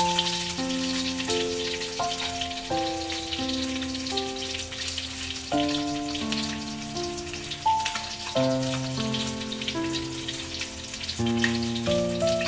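Fish fillets sizzling in hot oil in a steel wok, a steady crackling hiss, under background music of slow, sustained notes.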